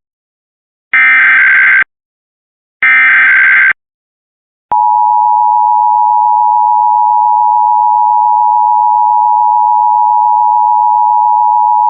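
Emergency Alert System SAME header: two buzzing bursts of digital data tones, each about a second long, with a second's gap between them. Nearly five seconds in, the EAS two-tone attention signal starts, a steady, harsh pair of tones at about 853 and 960 Hz that holds on unbroken. Together they open a broadcast EAS alert, here a Missouri statewide Required Monthly Test.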